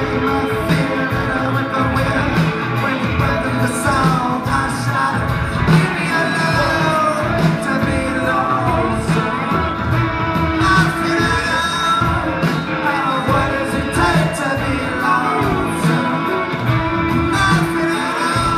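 Indie rock band playing live, with electric guitars and a lead singer.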